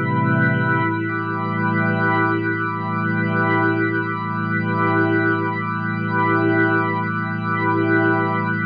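Korg Nautilus synthesizer playing an organ sound: held chords, with the low notes changing about a second in. The tone has a slow swirl that comes round about once a second.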